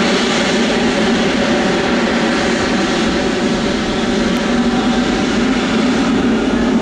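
Boeing 777-200F freighter's GE90 turbofan engines at take-off thrust: a loud, steady jet roar that grows slightly louder near the end.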